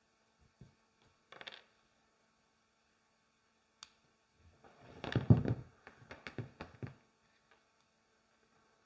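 A few faint clicks, then about two seconds of irregular knocks and rustling, loudest about halfway through.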